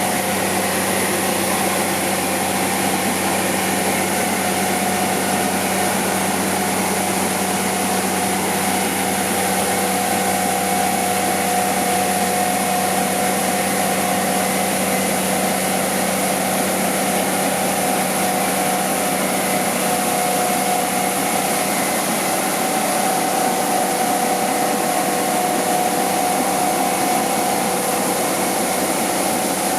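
A motor running steadily at one unchanging speed, a continuous hum with a higher whine over it.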